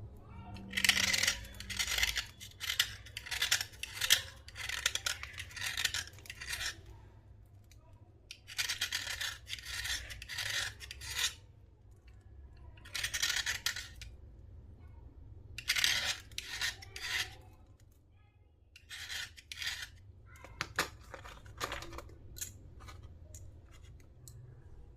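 Slate being worked by hand: bursts of gritty scraping strokes, each run lasting a second or several, with short pauses between.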